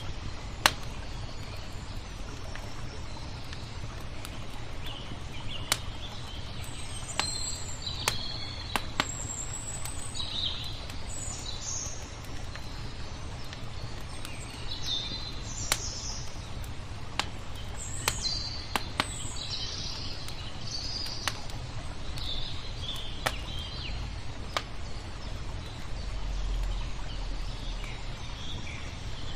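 Campfire crackling, with sharp single pops every second or two, over songbirds chirping and twittering throughout and a steady low rumble underneath.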